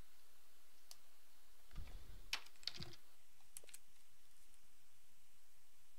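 A short run of faint computer keyboard keystrokes, a few clicks clustered about two to four seconds in, over a steady faint hiss.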